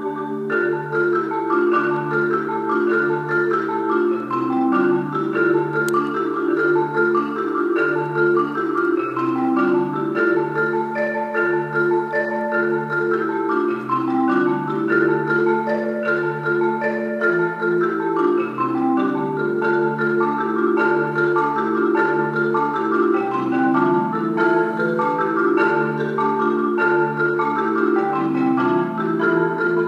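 Solo marimba played with mallets: a continuous stream of short struck notes, a repeating low bass pattern beneath a moving melody in the middle register.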